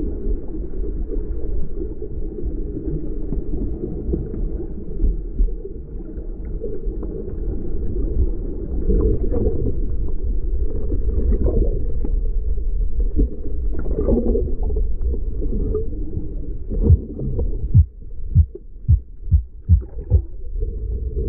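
Muffled underwater rumble of moving water, heard through a GoPro's waterproof housing. Near the end, a run of dull thumps comes about two a second.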